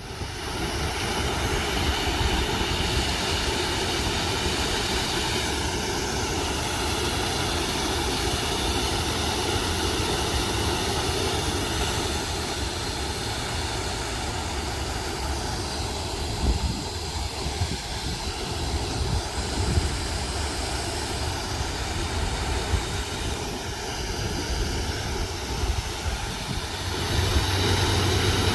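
A garden waterfall pouring and splashing into a pond: a steady rushing of water with a low rumble under it.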